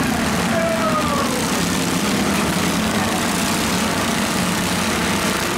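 Small engines of several garden tractors and riding lawn mowers running together in a steady mixed drone.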